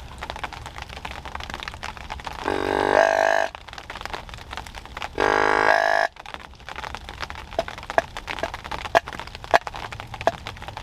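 Rain dripping and tapping on the cover overhead, with sharp drop ticks coming thicker near the end. Twice, about two and a half and five seconds in, a buzzy, steady tone sounds for about a second.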